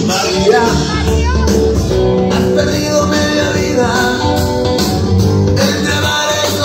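Rock song with singing and guitar played loudly over a DJ sound system.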